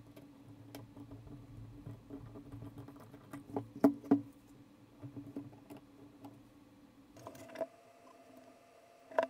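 Small precision screwdriver and fingers working on a Hasselblad 2000FC camera body: light clicks and taps of metal on metal, with a few louder clicks about four seconds in and one sharp click near the end, over a steady low hum.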